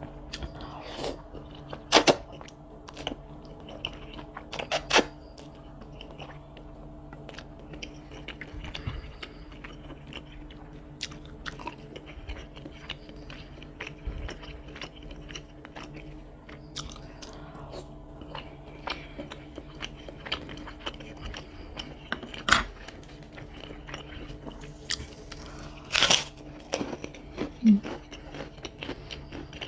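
Close-miked eating sounds: chewing chicken noodles with meatballs (mie ayam bakso), with many small wet clicks and a few louder sharp mouth sounds, about five spread through.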